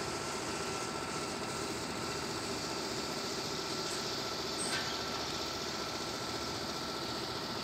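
Steady hum of distant engines, with a faint constant high tone running through it.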